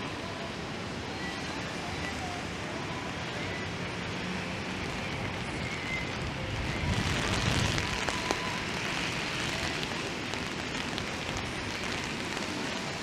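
Wet downtown street ambience: a steady hiss of rain and traffic on wet pavement, swelling about seven seconds in as a vehicle passes.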